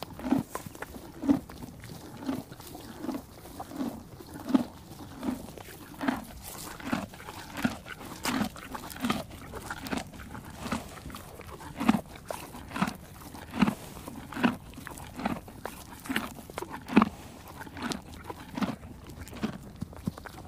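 A horse chewing, a steady crunch a little more than once a second.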